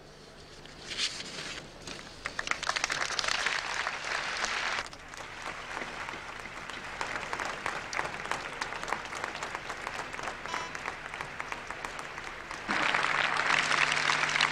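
Large crowd applauding, starting about a second in, dropping suddenly about five seconds in, and swelling louder near the end.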